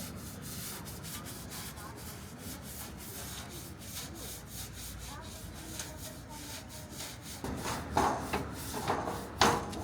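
Scrubbing on a boat's steel deckhouse roof: quick, irregular rubbing strokes as rust and dirt are cleaned off, with a few louder strokes near the end.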